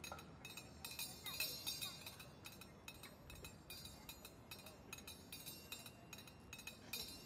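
Small hand cymbals clinking lightly, struck together in a quick, uneven rhythm.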